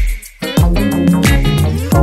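Background music with a steady beat: deep drum hits every half second or so under sustained bass and melodic instrument notes.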